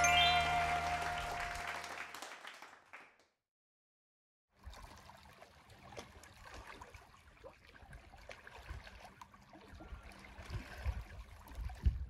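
A sustained musical chord rings and fades out, then after a brief silence, faint water laps and splashes against shoreline rocks in small uneven pulses.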